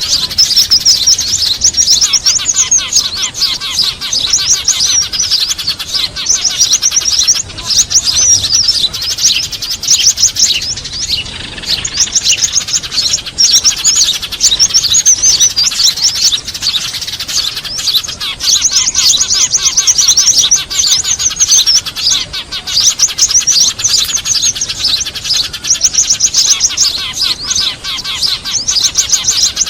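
Loud, busy chirping and twittering of small birds, Eurasian tree sparrows mixed with other small songbirds, in dense runs of rapid high chirps and fast trills with hardly a break. It is a bird-lure recording made to draw small birds in for trapping.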